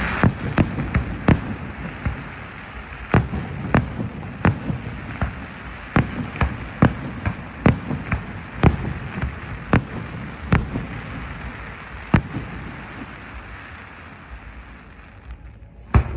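Fireworks display: an irregular series of sharp bangs from bursting shells, over a crackling hiss that is strongest in the first second. The bangs come every half second or so, thin out after about twelve seconds, and one last loud bang comes near the end.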